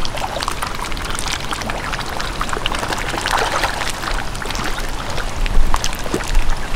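Water trickling and splashing steadily, dotted with many small quick pops, with a few louder low bumps near the end.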